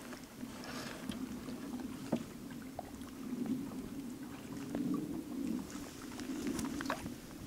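Water lapping against a kayak's hull as it is paddled, with scattered small drips and ticks.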